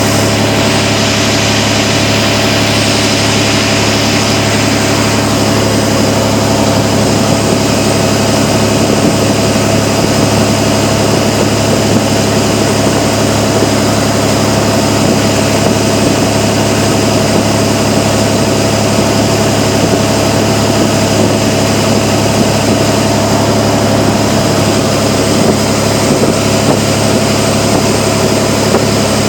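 Speedboat engine running steadily, its drone unchanged throughout, with a hiss of rushing noise over it.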